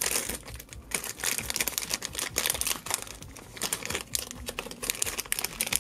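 Plastic toy blind bag crinkling and crackling in the hands as it is torn open and its contents pulled out, in a run of irregular crackles.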